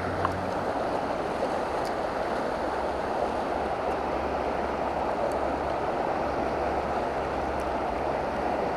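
Steady rush of a fast, shallow river running over rocks and riffles.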